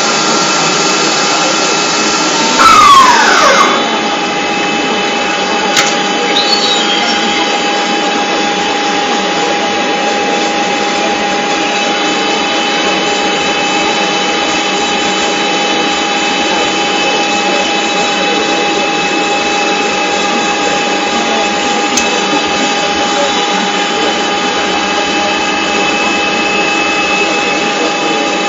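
Factory machinery running steadily, a constant mechanical noise with several held tones. About three seconds in comes a louder moment with a falling tone, lasting about a second.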